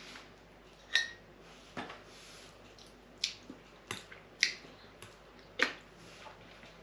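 Quiet eating sounds: a fork clinks once on a dish about a second in with a short ring, followed by several soft clicks and mouth smacks of chewing, spaced about a second apart.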